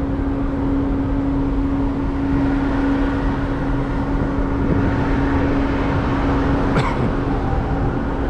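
Steady low rumble with a constant hum: the open-air noise of a cruise ship's top deck, wind on the microphone over the ship's machinery and ventilation hum. One brief click near the end.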